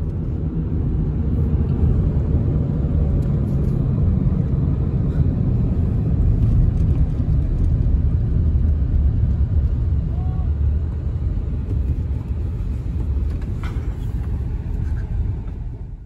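Steady low rumble of road and wind noise inside a moving car driving along a road.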